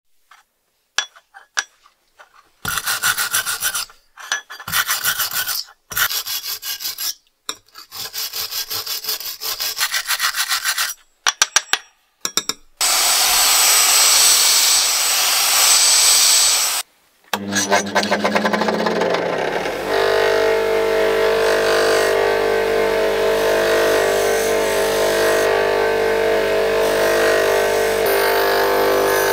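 Quick back-and-forth rubbing strokes on a wooden surface, in bursts with short pauses. Then a vacuum cleaner runs with a high whine for about four seconds and cuts off. A Metabo DS 200 bench grinder fitted with an abrasive polishing wheel then spins up with a rising hum and runs steadily while a small metal ring is held against the wheel.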